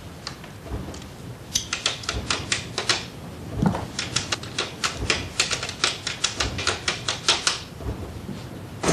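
Irregular run of sharp mechanical clicks, several a second, from a desk office machine worked while a telephone call is being put through. The clicks start about a second and a half in and stop shortly before the end.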